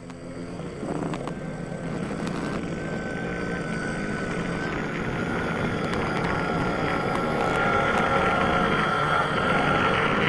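An engine or motor running continuously with a faint wavering whine. It grows louder quickly over the first second, then keeps building slowly.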